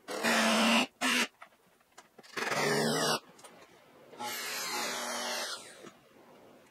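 Hand-held power drill run in four short bursts, the longest about a second, driving screws into plywood floor panels.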